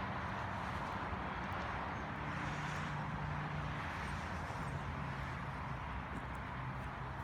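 Steady outdoor background noise with a low hum underneath that shifts in pitch a few times.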